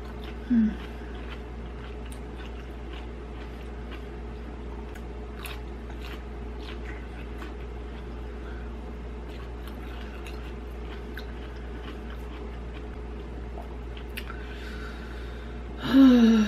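Close-up mouth sounds of a person chewing a strip of grilled bell pepper, with faint wet clicks over a steady low hum. There is a short "mm" hum about half a second in and a louder one near the end.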